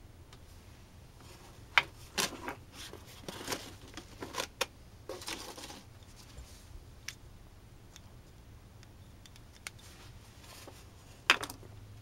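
Handling noise from a cardboard box of cast resin orgonite pieces: the pieces click and knock together and the cardboard rustles as a hand rummages among them. It is busiest between about two and six seconds in, with a sharp click near the start of that stretch and another near the end.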